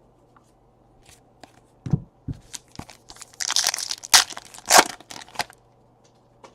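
A trading card pack's foil wrapper being torn open and crinkled, loudest in a burst of tearing about three to five and a half seconds in. Before it come a couple of soft thumps as the pack is handled.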